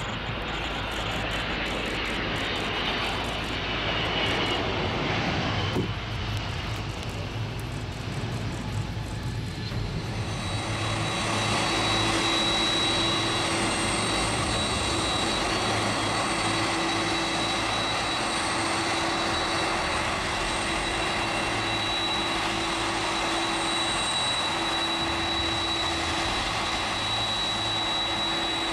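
The four General Electric CF6-80C2 turbofans of a Boeing 747-400. For about the first ten seconds they make a broad rushing jet noise as the jet rolls out after touchdown. Then it changes to a steady low-thrust engine whine, with a high held tone over a lower hum, as the jumbo taxis.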